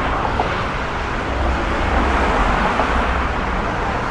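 Steady city street traffic noise, a dense wash of engine and tyre sound that swells a little louder in the middle.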